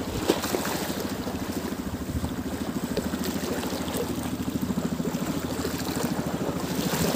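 A small boat engine running steadily with an even, rapid putter.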